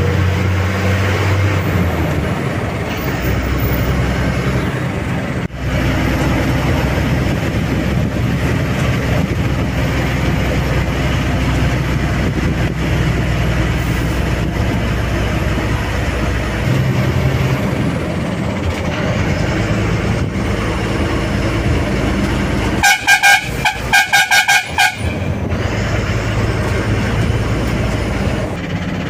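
Ashok Leyland bus running on the road with a steady engine and road noise. About two-thirds of the way through, its horn sounds in two rapid strings of short beeps, the loudest thing heard.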